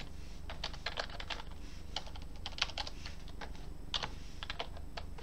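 Computer keyboard typing: a run of irregular keystrokes, with a faint low hum underneath.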